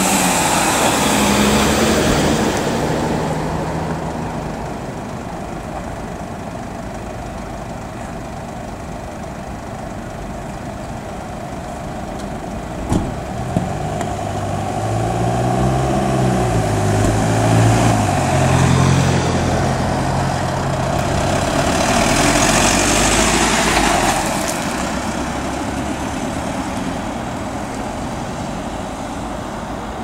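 Engines of Mercedes-Benz rescue vans idling and driving off, with vehicles passing close at times. In the middle, one engine revs up and down for a few seconds, just after two sharp clicks.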